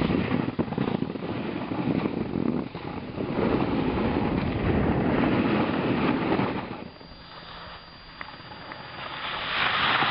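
Snowboarding sounds: board edges scraping over the snow with wind buffeting the microphone. It drops quieter about seven seconds in, then a snowboard carving hard close by brings a swelling hiss of sprayed snow near the end.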